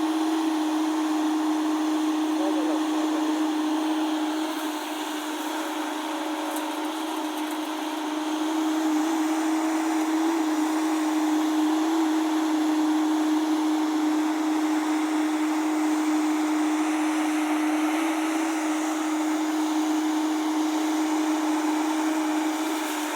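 JCB backhoe loader's diesel engine running steadily with a constant droning hum, dipping a little in level for a few seconds partway through.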